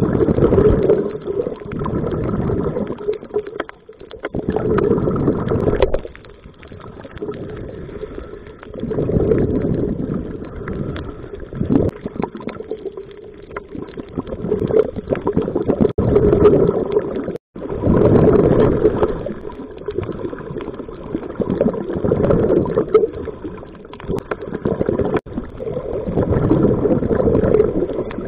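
Scuba diver's exhaled breath bubbling out of the regulator, heard underwater: muffled gurgling swells that come and go every three to four seconds, in rhythm with the breathing.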